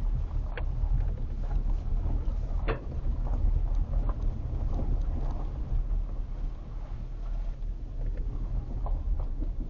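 Vehicle driving on a dirt road: a steady low rumble of tyres and engine, with scattered clicks and light knocks.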